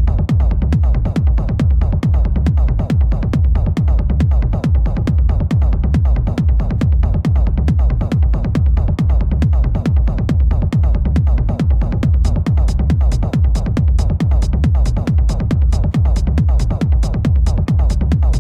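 Background trance/techno music with a steady, fast beat and heavy bass; a brighter, crisper top end comes in about two-thirds of the way through.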